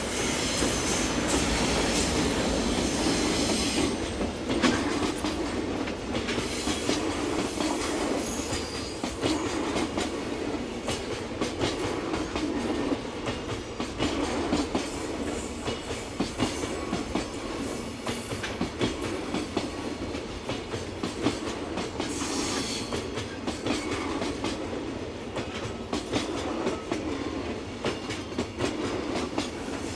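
Container wagons of a freight train rolling past, their wheels clacking over the rail joints in a steady stream of clicks over a rumble. The sound is loudest in the first few seconds.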